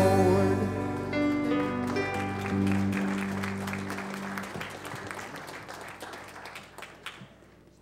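A gospel band's final guitar chord ringing out and fading while a congregation applauds; the clapping dies away near the end.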